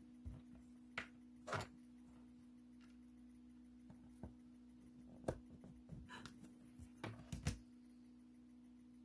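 Faint handling sounds of leather lace and small tools on a cutting mat: scattered soft clicks, taps and rustles, the sharpest about five seconds in and near the end, over a steady hum.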